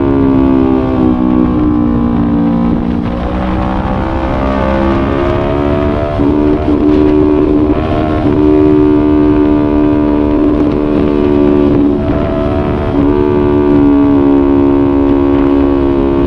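Yamaha YZF-R3's parallel-twin engine under way. It falls in pitch over the first few seconds, then pulls again, with short dips where it shifts up, about three of them. Wind rushes underneath.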